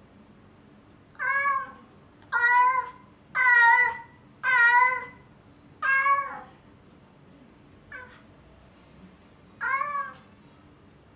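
Cat meowing out of loneliness, calling for its absent owners. Five loud, drawn-out meows come about a second apart, then a short faint one, then one more loud meow near the end.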